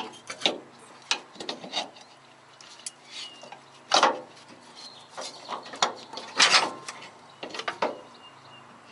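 Irregular metal clinks and knocks, with some scraping, as a Firestone air spring's steel mounting brackets are worked up against the pickup's frame rail for a dry fit; the loudest knocks come about four seconds and six and a half seconds in.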